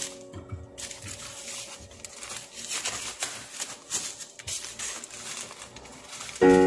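Thin plastic crinkling and rustling as it is handled, with small irregular crackles. Background music fades out just after the start and comes back near the end.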